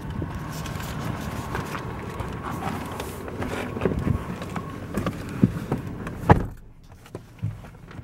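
Driver climbing into a Toyota 4Runner: scattered knocks and rustling, then the driver's door shutting with a thud about six seconds in, after which the sound turns quieter and duller from inside the closed cab.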